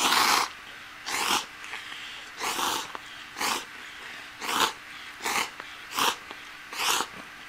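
Slurping hot instant soba noodles from a Donbei tempura soba cup: about eight short slurps, roughly one a second.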